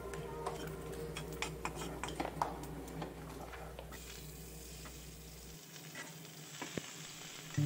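Steel slotted spatula stirring in a kadai, with irregular scrapes and taps on the pan over a faint sizzle of spices and vegetables frying in a little oil.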